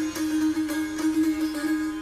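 Music on a plucked string instrument: quick plucked notes over one steady drone note.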